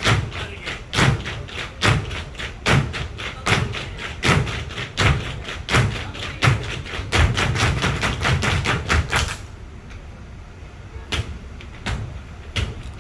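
Tap shoes striking a stage floor in a group tap routine: a rhythm of sharp metal taps and heavier stamps. The steps break off about nine seconds in, leaving only a few scattered taps.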